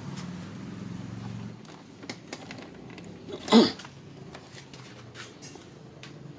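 A short, loud burst from a person's voice about halfway through, falling in pitch, amid a few light clicks from handling a power cord.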